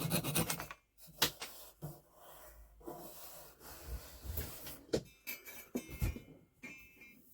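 Hand saw cutting a wooden dowel flush, in fast rasping back-and-forth strokes that stop just under a second in. Scattered knocks and clicks of wood and tools being handled follow.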